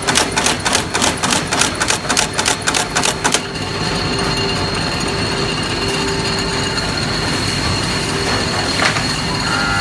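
A machine clacking rapidly and evenly, about five strokes a second, which stops about three seconds in and gives way to a steady mechanical whirr with a constant high whine.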